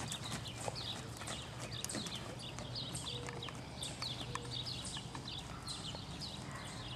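Faint hoofbeats of a horse cantering on a sand arena.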